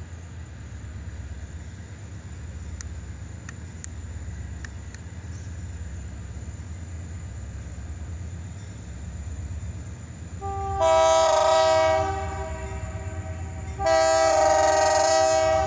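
EMD SD40-2 diesel locomotive sounding its multi-chime air horn in two long blasts, the first about eleven seconds in and the second near the end, the warning for a road grade crossing. Under it, the steady low rumble of the approaching locomotives.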